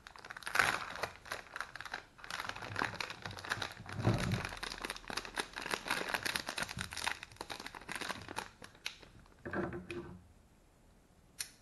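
Clear plastic wrapping being torn open and pulled off a plastic kit case by hand: dense crinkling and crackling for about nine seconds, then one short burst of crinkling, then quiet.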